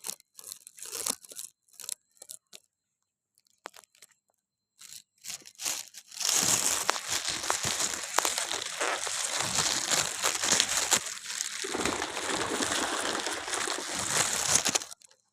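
Scattered crunching clicks at first, then a dense, continuous crinkling rustle starting about six seconds in and stopping just before the end.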